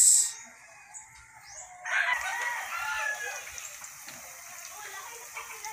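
Spring rolls deep-frying in hot cooking oil, a steady sizzle. About two seconds in, a rooster crows over it, the loudest sound here, for about a second and a half.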